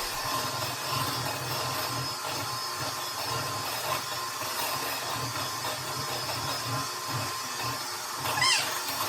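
Electric hand mixer running steadily, beating cake batter in a bowl.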